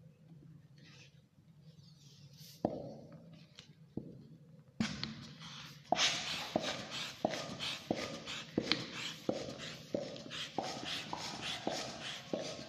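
Plastic hand pump inflating a long latex modelling balloon: a few light clicks as the balloon is fitted on the nozzle, then from about six seconds in a steady run of pump strokes, about three every two seconds, each a short rush of air.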